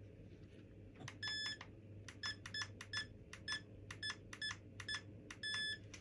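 Electronic beeper on an RC plane's electronics sounding as they are powered up: a longer beep, a string of about eight short beeps at roughly two a second, then another longer beep near the end. A faint steady low hum lies underneath.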